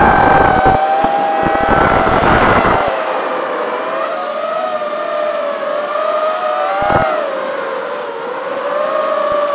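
FPV quadcopter's electric motors and propellers whining, the pitch swinging up and down as the throttle changes. Bursts of rumbling noise come through in the first three seconds and once more briefly near the end.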